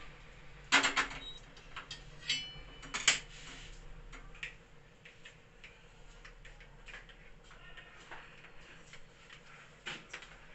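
Steel kitchen utensils clinking and knocking while coffee is made. There are a few sharp clanks in the first three seconds, one with a brief metallic ring, and then lighter taps and ticks.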